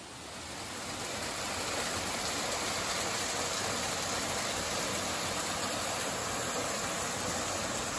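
A small mountain waterfall splashing down over mossy boulders into a rocky streambed. It is a steady rush of falling water that swells up over the first second or two.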